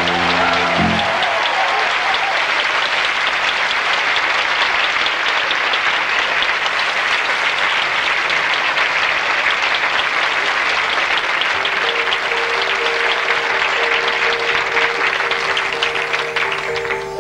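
Theatre audience applauding after a song. The accompaniment's final chord dies away about a second in, and held notes of the next song's introduction start under the applause about three-quarters of the way through as the clapping thins.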